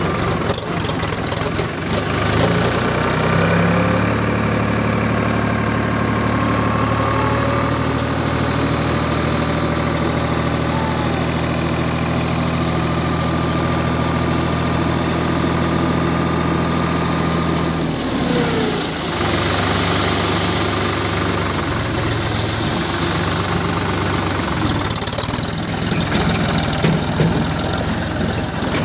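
Sonalika tractor's diesel engine running steadily while it works the trolley's hydraulic tipper to dump a load of soil. About 18 seconds in the engine note drops away for a second, then comes back.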